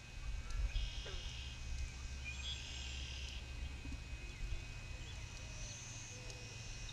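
Wind buffeting the microphone by a pond, strongest in the first three or four seconds, with faint bird calls.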